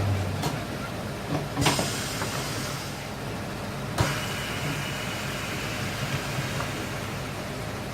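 A machine's low, steady hum cuts off about half a second in, leaving a fainter hum under a few short clatters and a sharp click about four seconds in.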